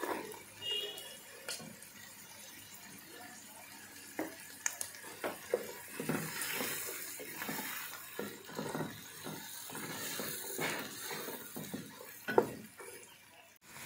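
A wooden spatula stirring chickpeas and sliced onions frying in butter in a pan: sizzling with scraping and short knocks against the pan, the stirring getting busier after a few seconds and one louder knock near the end.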